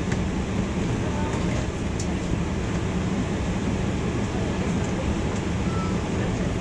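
Steady low rumble and hum of a Boeing 747's running engines, heard inside the passenger cabin as the jet taxis at a crawl.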